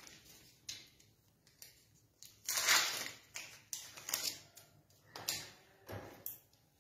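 Thin plastic wrapper crinkling and tearing as a sterile cytobrush is unpacked by hand, in short rustles with small clicks between. The loudest rustle comes about two and a half seconds in.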